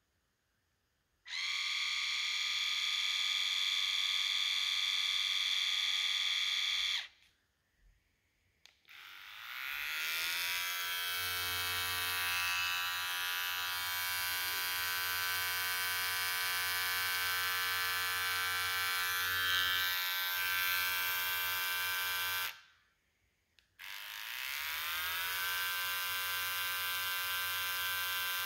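Remington Touch Tech shaver's electric motor buzzing with a steady whine, switched on three times: a run of about five seconds, a longer run of about fourteen seconds whose pitch rises as the motor spins up, then a final run of about five seconds.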